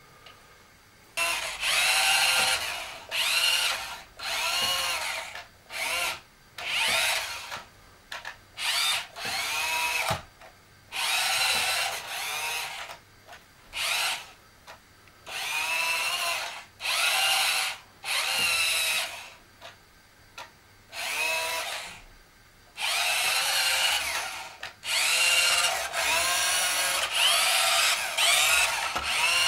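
Toy RC car's small electric motor whining in repeated bursts of a second or so, each rising and falling in pitch as the throttle is pulsed, with a longer run near the end. The hard plastic rear tyres spin on the rug without getting traction.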